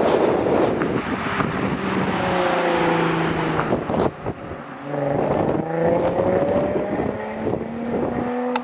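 Nissan 350Z's 3.5-litre V6 exhaust note through a Spintech aftermarket exhaust, under heavy wind noise on the microphone. The note holds steady, drops off briefly about four seconds in, then climbs steadily in pitch as the car accelerates.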